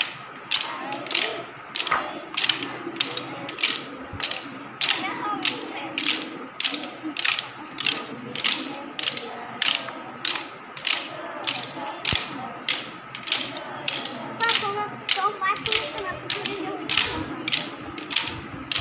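Wooden sticks clacked together by stick dancers in a steady rhythm, about two sharp clacks a second.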